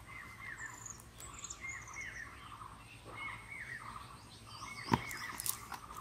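Repeated short chirping animal calls, each a quick falling note, coming every second or so, with one sharp click about five seconds in.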